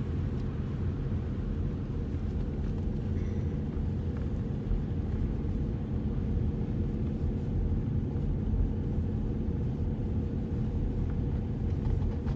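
A car driving along at a steady pace: the low, even rumble of engine and tyres on the road, heard from inside the cabin.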